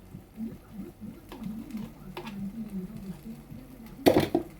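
A few light clicks, then a loud, sharp clatter lasting about half a second near the end, over faint murmuring voices.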